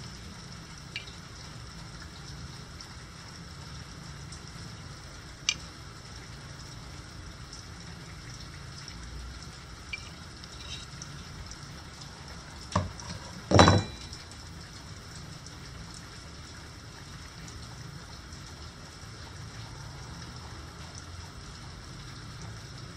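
Handling noise from a knife's steel blade and its broken handle: a few light clicks, then about two-thirds of the way in two louder knocks, the second with a brief metallic ring, over a steady low hum.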